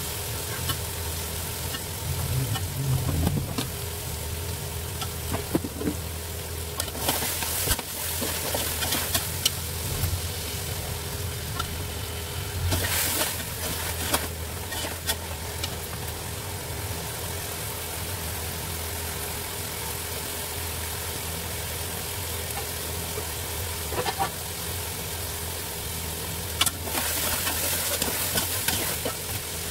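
A metal slotted spoon stirring beef and masala in an aluminium pot, scraping the metal in repeated bursts, with a gentle sizzle of the frying masala over a steady background hum.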